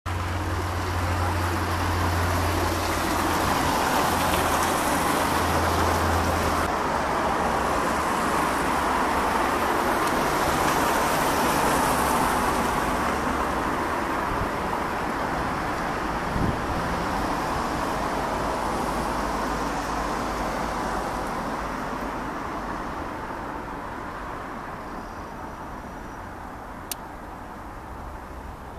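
Saab 340B twin-turboprop airliner in flight, its two General Electric CT7 turboprop engines and propellers making a steady drone. The drone is loudest for about the first half and then fades slowly as the aircraft draws away.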